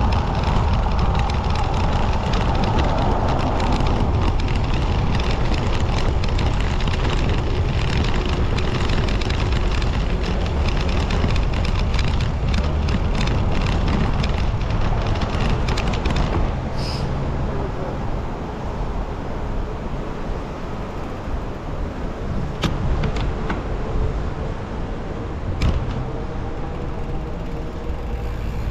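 Wind rumble and rolling road noise from a camera riding along, with a fast rattle while crossing cobblestones. About halfway through it eases to a quieter, smoother hum on asphalt, with a few sharp clicks later on.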